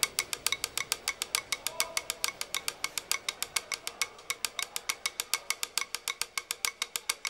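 Fast, even percussion clicks, about seven a second, keeping a steady pulse as the opening of a music track.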